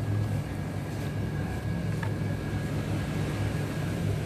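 Shop room tone: a steady low machine hum with a faint steady high whine over it, and a light click about two seconds in.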